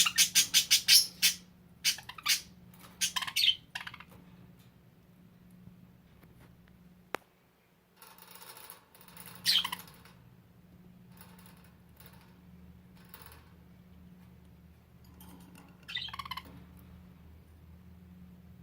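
Pet budgerigars squawking: a quick run of sharp, harsh calls in the first few seconds, then quieter, with a single sharp click midway and two more short bursts of calls later on.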